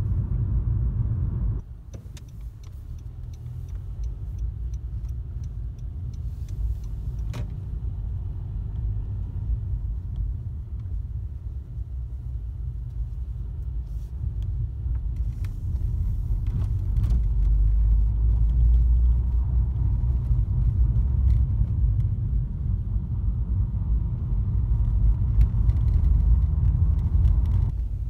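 Car driving, heard from inside the cabin: a steady low rumble of tyres and engine. It drops sharply about two seconds in and grows louder again in the second half.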